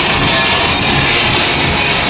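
Metal band playing live and loud through a PA: distorted electric guitars, bass and drums, heard from within the crowd.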